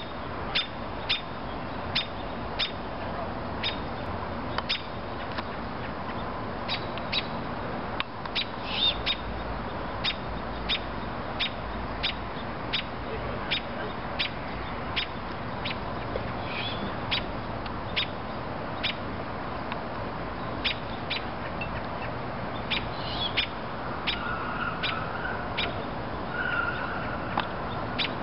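A robin giving a long series of sharp alarm ticks, roughly one to two a second, scolding an owlet perched in the tree. A few fainter, hoarser bird calls come in about a third of the way in and again near the end.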